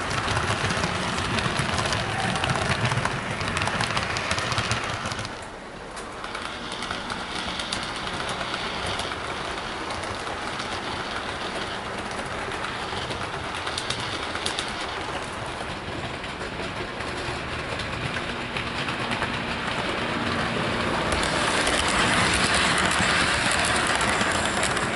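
Hornby OO-gauge Class 50 model diesel and its coaches running round a model railway layout: the loco's electric motor hums and the wheels rattle over the track. The sound grows louder over the last few seconds as the train passes close by.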